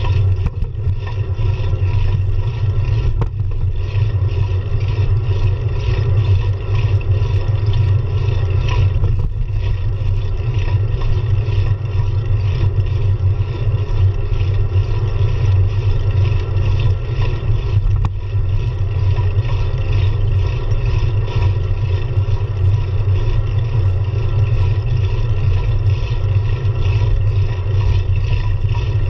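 Steady low rumble of wind buffeting the microphone of a camera on a moving road bicycle, with tyre and road noise underneath.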